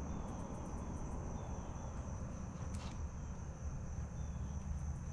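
Steady, high-pitched insect trill, held without a break, over a low rumble, with a single faint tick about three seconds in.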